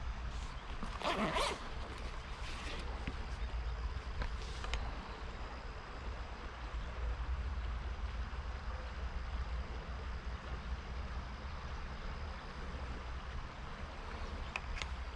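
A pocket zipper pulled open about a second in, as a fly box comes out. A few smaller rasps and clicks follow, then two sharp clicks near the end, all over the steady rush of river water and a low rumble.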